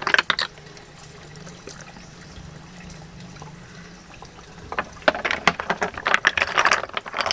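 Boiled mountain snail shells clicking and clattering against each other in a wet plastic basin as hands pick through them. There are a few clicks at the start, a quieter stretch, then a dense run of clicks from about two-thirds in.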